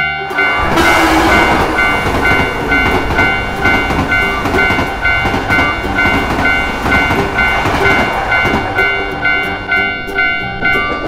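A train passing through a level crossing, its rumble and wheel noise starting about half a second in. Over it a railway crossing warning bell rings in a steady, repeating two-tone rhythm.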